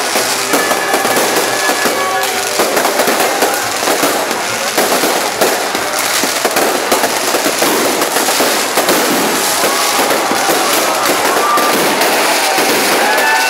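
Dense, continuous crackling and popping of many fireworks and firecrackers bursting overhead.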